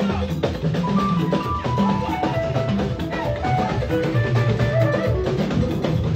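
Live church band music driven by a drum kit played energetically: busy kick, snare and rim strokes, with held melody notes over them.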